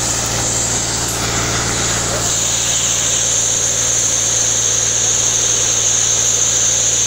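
Tractor engine running steadily as it drives a sawmill's circular saw bench, a continuous drone with a steady high whine over it.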